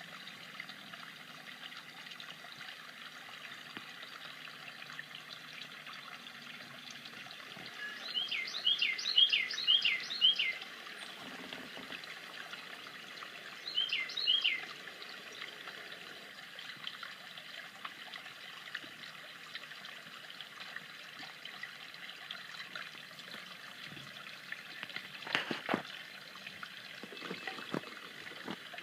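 Water trickling steadily in a bird bath. A bird calls five quick falling notes about eight seconds in and two more a few seconds later; a few sharp knocks come near the end.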